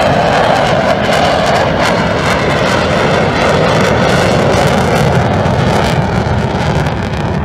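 Eurofighter Typhoon fighter jet flying past, its jet engines loud and steady with a rasping crackle. The sound cuts off abruptly at the end.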